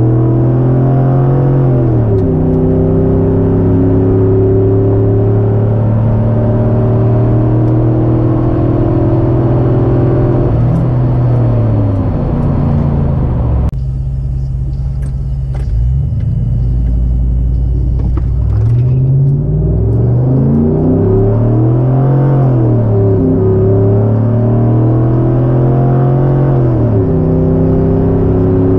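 2012 Chevrolet Silverado 1500 pickup's engine pulling hard down a drag strip. Its pitch holds steady for long stretches, then dips and climbs again with the gear changes. About 14 seconds in it cuts to a deep low rumble at the start of another pass, and the revs then climb and fall again several times.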